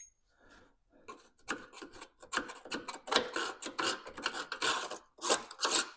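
Rough scraping and rubbing strokes against a surface, a few a second, starting about a second in and getting louder.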